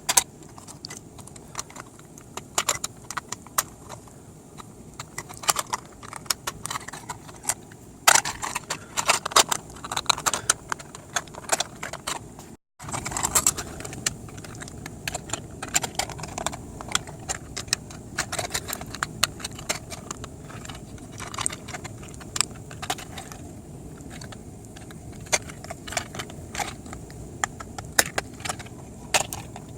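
Rapid small clicks and rattles of flat-printed plastic panels and hinges being handled and folded by hand, with a brief break to silence about thirteen seconds in.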